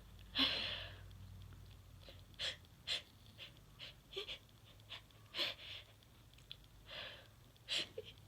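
A woman's short, sharp breaths and sniffs through the nose, about eight of them at irregular gaps, the loudest about half a second in.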